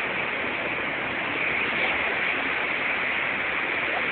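Fast mountain stream rushing over rocks: a steady, even wash of white-water noise.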